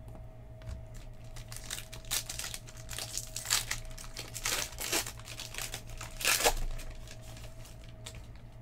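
Foil wrapper of a Panini Chronicles basketball card pack being torn open and crinkled by hand: a run of sharp crackles starting about two seconds in, loudest at about six seconds, then tailing off.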